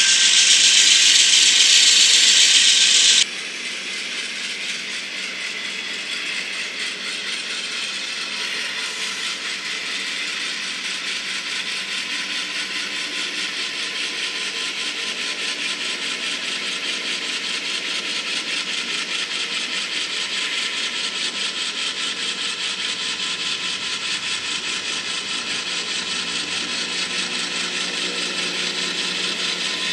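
N-scale model train rolling along the track: a steady fine rattle of small wheels and couplings clicking over the rails. It is louder and brighter for the first three seconds, then drops suddenly to a softer, even rattle.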